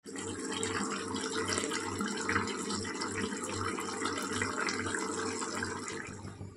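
Chicken curry gravy bubbling at a simmer in a pan, a steady crackling bubbling that eases off near the end.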